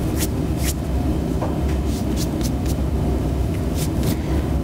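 Steady low background rumble, with a few light clicks in the first second.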